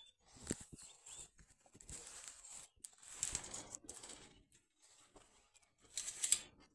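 Close-up rustling and scuffing from a German shepherd-type dog being petted by hand, with its fur and head brushing against the phone. Irregular bursts, loudest about three seconds in and again near the end, with a few soft knocks about half a second in.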